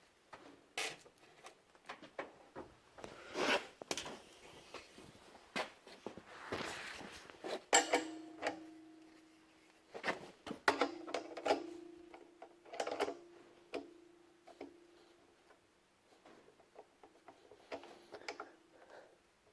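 Metal air-line fittings being handled and fitted to an air compressor's quick-connect outlet couplers: a series of clicks and knocks. From about eight seconds in, a steady tone comes and goes several times.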